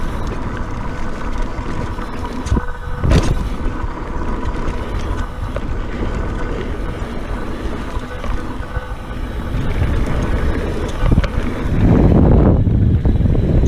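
Mountain bike riding fast down a dirt trail: wind buffeting the camera microphone over the rumble of tyres on packed dirt, with a sharp knock about three seconds in. The wind rush gets louder near the end.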